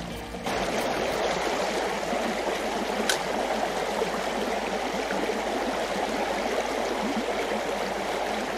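Steady rushing and gurgling of a shallow, stony river flowing through a riffle.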